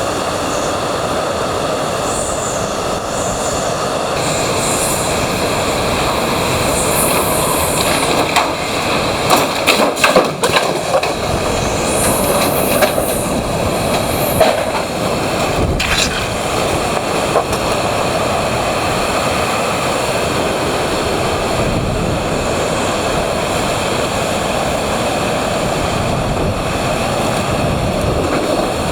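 Hurricane wind blowing hard and steadily with a train-like rush. High whistles rise and fall through the first half. A few sharp knocks and rattles come around the middle.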